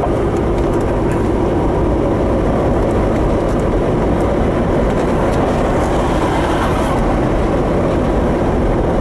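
Steady road noise inside a moving Jeep: engine, tyre and wind rumble running together at an even level.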